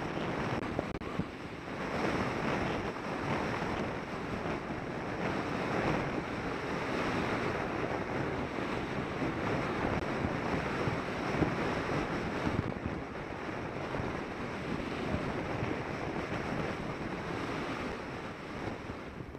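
Steady rushing wind noise on the microphone of a mountain bike moving fast along a gravel track, mixed with the rumble of knobby tyres rolling over the gravel.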